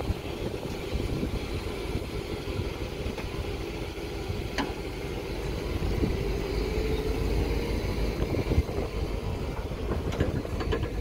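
Engines of a P38 Range Rover and a mired Toyota Tacoma TRD Off-Road running under load during a snatch-strap recovery in mud, with a steady low rumble. An engine note rises slowly about halfway through.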